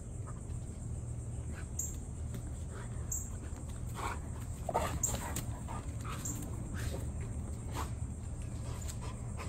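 A dog making short, high whines, several in a cluster around the middle, over a steady low background hum.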